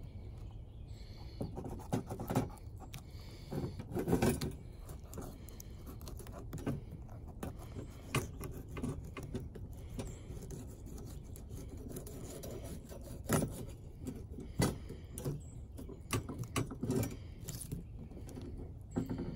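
Fillet knife scraping and cutting along a small channel catfish laid on a wire grill grate, with irregular metallic clicks and scrapes against the grate. The sharp clicks come every second or two, over a steady low rumble.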